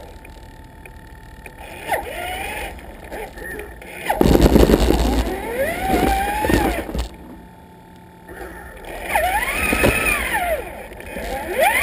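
Electric motor and geared drivetrain of a Traxxas Summit RC truck whining, the pitch rising and falling in arcs as the throttle is worked. About four seconds in there is a loud rush of noise lasting a few seconds, as the plow blade pushes through snow.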